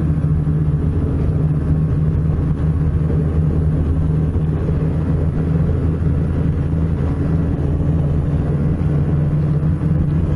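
Snowmobile engine running at a steady cruising speed, heard from the moving sled, with no change in revs.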